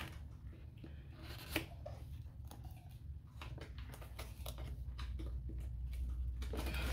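Hands handling a long cardboard box: scattered faint scrapes, taps and rustles, with one sharper tap about one and a half seconds in, and a low rumble building near the end.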